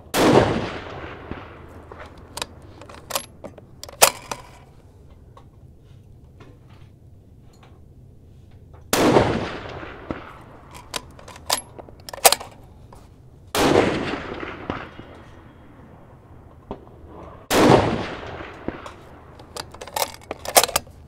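Four rifle shots from a 6mm Creedmoor bolt-action rifle fired at steel targets 300 yards away, spaced a few seconds apart, each trailing off in a rolling echo. Fainter sharp cracks fall between the shots.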